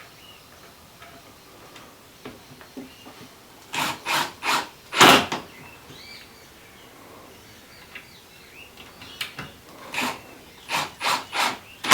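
Impact driver driving two screws into a wooden step-stool frame in short trigger bursts: a cluster of four bursts about four seconds in, and another of about five near the end.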